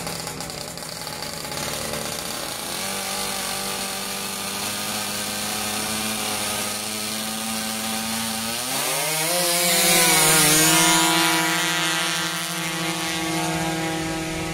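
Small scooter engine running at a steady high buzz at a drag-race start line. About eight and a half seconds in it revs up in pitch and holds at a higher, louder note.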